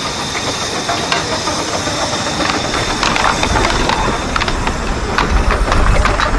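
Tinkerbell 7¼-inch-gauge miniature steam locomotive running past close by: a steady steam hiss with soft chuffs and clicks of wheels on rail. A low rumble comes in about halfway through and grows toward the end as it passes.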